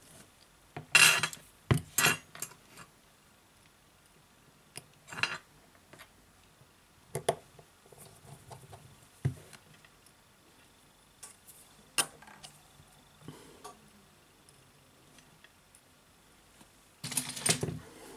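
Scattered sharp clicks and taps from a smartphone's internal parts being handled and snapped into place by hand: clips and metal brackets on the Huawei P10's lower board pressed home, with a denser run of clicks near the end.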